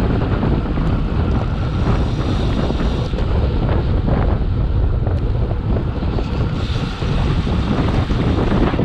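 Wind rushing over a bike-mounted action camera's microphone while riding a road bike at speed, a steady low rumble that flutters constantly.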